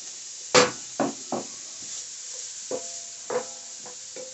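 Chopped onion sizzling gently in olive oil in a stainless steel skillet, with a wooden spatula stirring and knocking against the pan several times, some knocks leaving a brief metallic ring. A sharp clack about half a second in is the loudest sound.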